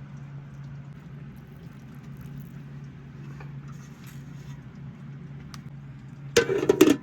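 A steady low hum with faint scattered clicks, then a burst of loud clinking and clattering near the end.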